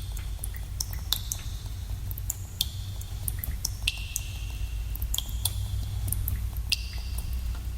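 Water drops falling at irregular intervals in a cave, each a sharp plink with a brief ringing, echoing tone, over a steady low rumble.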